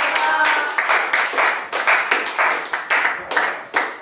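A small group clapping their hands in a steady rhythm, about two claps a second, with voices over the first half-second.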